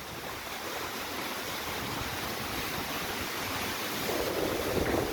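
Stormy sea surf mixed with strong wind: a steady rushing noise that swells about four seconds in.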